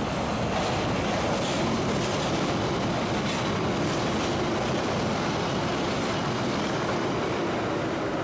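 A London Underground 1973 Tube Stock train running through the station without stopping at about 30 mph. Its wheels on the rails make a steady, loud rumble as the cars pass close by.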